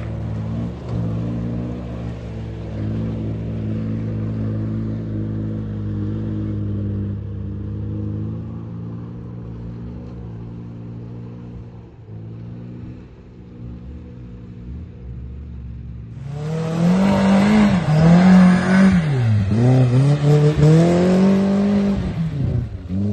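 A boxy Toyota off-roader's engine running steadily and fading as it climbs away up a muddy track. About 16 seconds in, a Daihatsu Terios comes through hard, its engine revved high, revs rising and falling again and again as its wheels throw mud.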